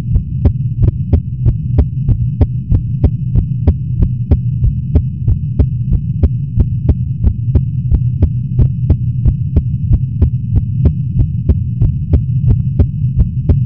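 Human heartbeat, recorded close up, beating fast and regularly at about four thumps a second, over the steady low hum of an air conditioner.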